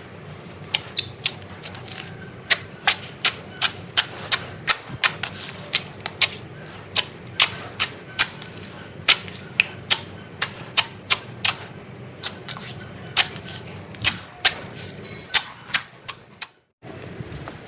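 Slime being worked by hand, giving off a string of sharp popping clicks, uneven and about two or three a second, with a brief cut to silence near the end.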